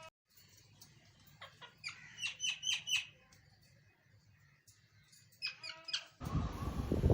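Bird chirps in short quick clusters, with a harsher call near the end, then a loud rushing noise starts just after six seconds in.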